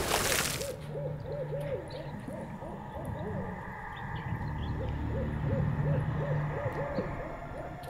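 A loud ringing sound fades out at the very start. Then comes a quick series of short animal calls that rise and fall in pitch, about four a second, in two runs with a brief pause between them, over a low steady hum.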